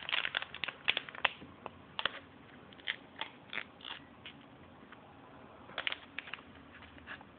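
A plastic sample packet of protein powder being handled and emptied: scattered crinkles, scrapes and small clicks, busier in the first two seconds and again about six seconds in, as the powder spills out of the packet.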